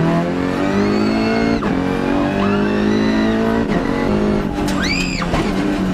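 Volkswagen Golf GTI TCR race car's turbocharged four-cylinder engine heard from inside the cockpit, revving up through the gears: the pitch climbs and drops back at each upshift, several times. A brief high squeal about five seconds in.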